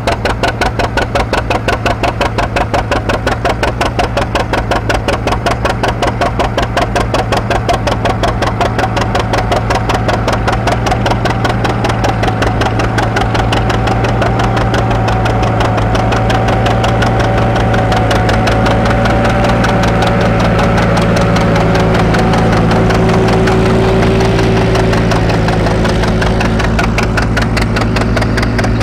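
Antique farm tractor engine chugging steadily with an even beat from its firing pulses as it pulls a plow through the soil. A higher steady tone comes in over the second half.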